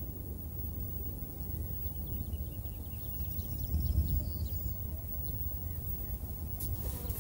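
Outdoor field ambience: a steady low rumble with faint, short high chirps scattered through it, and a brief rustle near the end.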